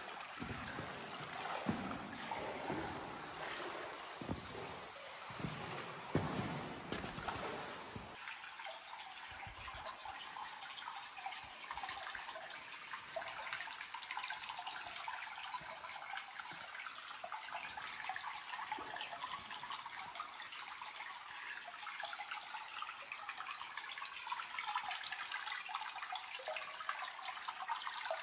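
Shallow cave stream trickling and running over gravel and rocks, a steady rushing hiss. A few low thumps sound in the first several seconds, then only the water.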